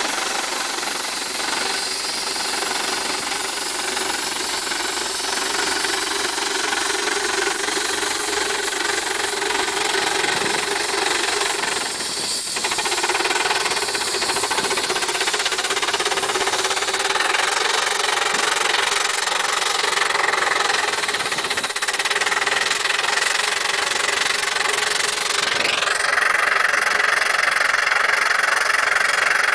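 Steam traction engine working under load pulling a gang plough, its exhaust chuffing in rapid, steady beats with a hiss of steam. Near the end a higher tone rises and then holds.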